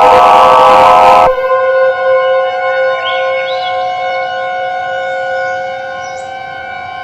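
Electronic emergency-alert siren tones. A loud, harsh held tone cuts off abruptly about a second in and gives way to a steady, cleaner siren tone that slowly fades.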